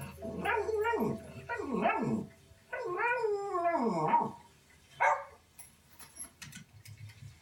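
Dog vocalizing: a quick run of short yelps that fall in pitch, then a longer wavering howl about three seconds in, and one more short yelp around five seconds.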